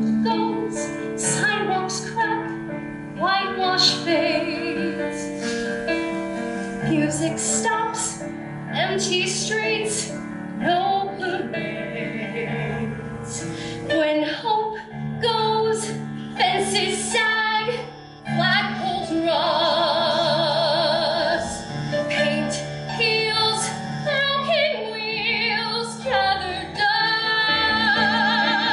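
A woman singing a musical-theatre ballad with vibrato over a steady instrumental accompaniment.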